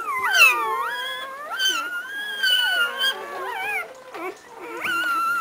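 Newborn Labrador Retriever puppies crying: several high-pitched, wavering squeals overlap, rising and falling in pitch, with a short lull about four seconds in.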